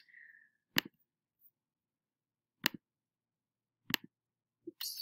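Computer mouse clicks: a few single sharp clicks spaced a second or more apart, one of them a quick double click.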